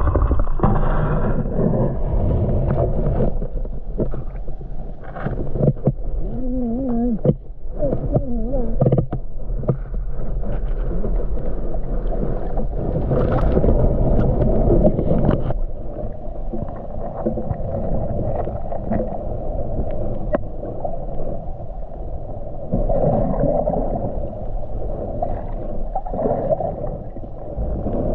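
Water sloshing and gurgling, heard muffled from underwater, with a few wobbling tones about a quarter of the way in.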